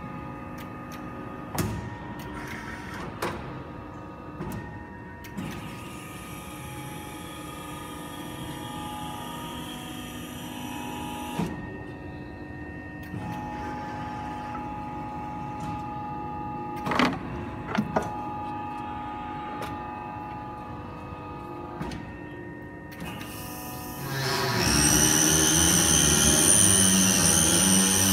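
CNC mandrel tube bender running through its bend cycle: a steady hum and whine of its servo drives, with occasional clicks and knocks from the clamps and tooling. About 24 s in the machine's running grows much louder and stays loud.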